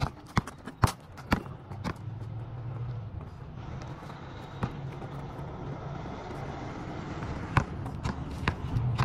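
Basketball bouncing on an asphalt court: three dribbles about half a second apart in the first second and a half, then single bounces around the middle and a quick run of bounces near the end. A motor vehicle's engine hums steadily underneath from about two seconds in.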